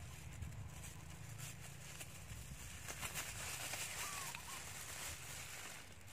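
Faint rustling and crinkling of a protective fruit bag and guava-tree leaves as the bag around a guava on the branch is opened by hand. A low rumble runs under it for the first two seconds.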